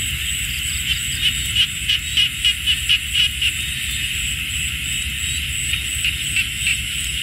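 Night chorus of insects and frogs in a field: a steady shrill drone with a faster pulsing trill above it, over a low steady rumble. A run of about ten rhythmic calls, about three a second, stands out between one and three and a half seconds in, with a few fainter ones near the end.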